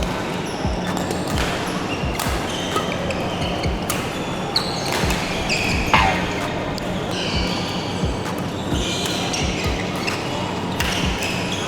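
A badminton rally on an indoor court: sharp racket hits on the shuttlecock every second or two, shoes squeaking on the court floor, and quick footfalls.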